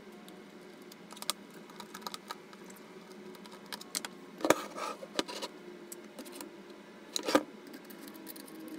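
Scattered clicks and knocks of hard plastic and metal parts handled by hand as a metal screen bracket is fitted onto a FrSky Taranis X9D radio transmitter. Two knocks stand out as louder, one about halfway through and one near the end, over a faint steady hum.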